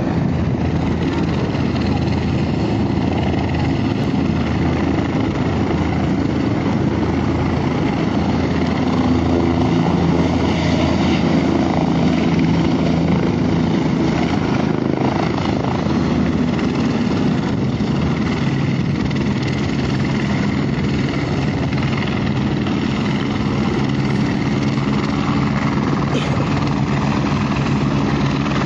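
Helicopter running steadily as it lifts off from the pad and flies close by.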